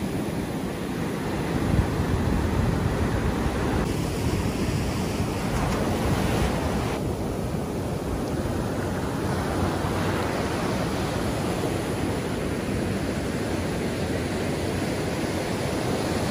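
Ocean surf breaking and washing up a sand beach, a steady rush of waves with wind on the microphone.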